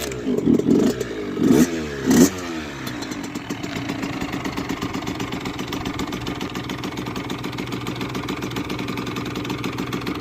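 Freshly rebuilt 2002 Kawasaki KX65's 65cc two-stroke single-cylinder engine, already warm, catching and getting four quick throttle blips in the first couple of seconds, then settling into a steady idle.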